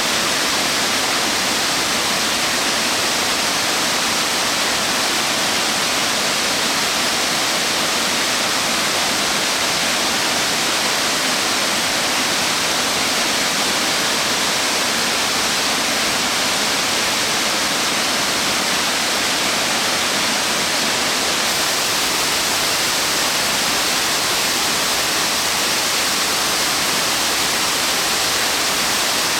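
Large waterfall crashing steadily: the roar of water falling some 111 m over a wide rock face and splashing at its base, an even hiss with no breaks.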